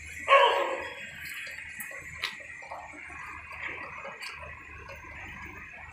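A loud, brief clatter about a third of a second in, then scattered light clicks and ticks, one sharper click a little after two seconds, over a steady hiss: hand work during the assembly of a stainless steel chair.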